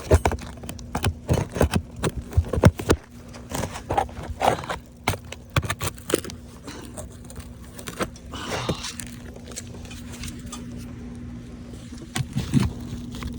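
Roofing repair work on brittle asphalt shingles: irregular sharp clicks, taps and scrapes as tools pry at nails and shingles, busier in the first half and sparser later. A faint steady hum sits underneath.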